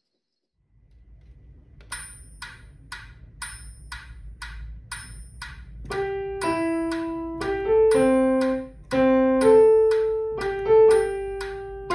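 A metronome clicks at 120 beats a minute in three-four time, every third click accented, starting about two seconds in as a count-in. From about six seconds in, a single-line melody is played over it on a Kawai digital piano.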